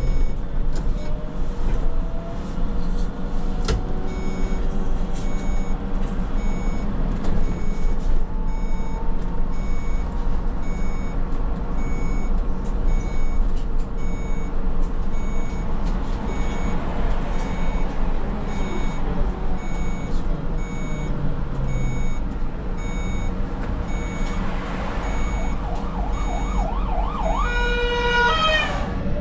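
Škoda 27Tr trolleybus running in service: a steady drive hum with the electric traction motor's whine gliding up and down in pitch as it pulls away and slows, and a rising whine near the end.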